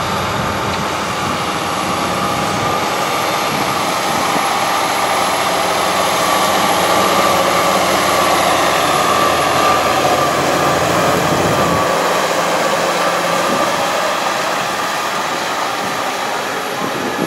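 New Holland tractor's diesel engine running steadily under load as it pulls a Maschio disc tillage tool through corn stubble. It is loudest about halfway through as it passes close, then fades as it moves away.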